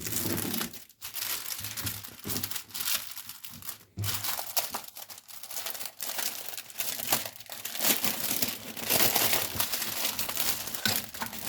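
Plastic and paper packaging crinkling and rustling as it is handled and opened, with many quick crackles, busiest near the end.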